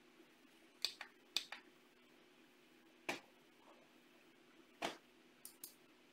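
Sparse, irregular clicks of computer keys and buttons being pressed while logging on, about eight in all, some in quick pairs, over a faint steady hum.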